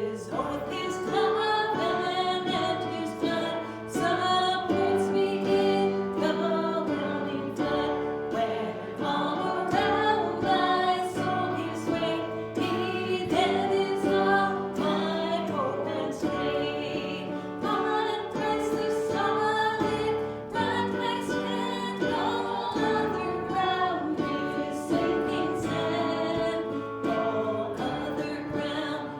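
Church congregation singing a hymn, voices over sustained instrumental accompaniment.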